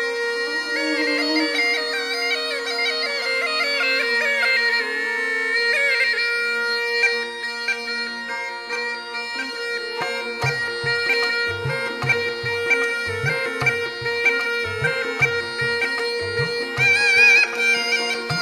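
Murli, the Rajasthani gourd pipe, playing a wavering melody in raga Bhairavi over its own steady drone. About ten seconds in, a drum joins with a steady beat.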